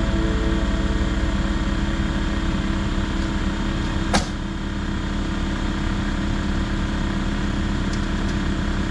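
An engine running steadily, with one sharp click about four seconds in.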